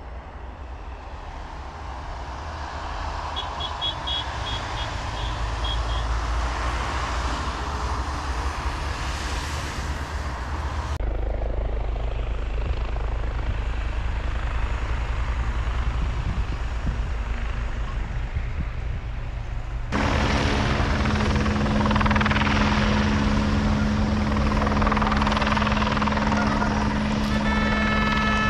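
Helicopter rotor and engine running steadily. It grows louder over the first several seconds, and the sound breaks off sharply and changes twice.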